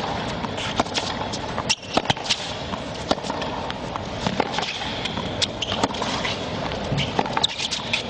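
Tennis rally on a hard court: sharp racket strikes and ball bounces at irregular intervals over steady background noise.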